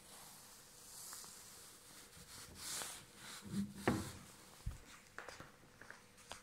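Handling noise from a camera being carried around: soft rustling, a cluster of light bumps around the middle, and a few small clicks near the end.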